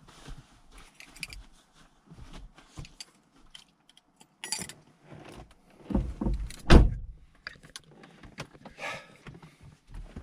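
Scattered small clicks and rattles of things being handled, with a few heavy low thumps about six to seven seconds in.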